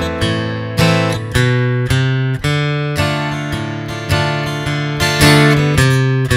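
Steel-string acoustic guitar playing a steady pattern of bass notes and strummed chords, about two strokes a second. Single bass notes walk stepwise to link an A minor chord and a D minor chord.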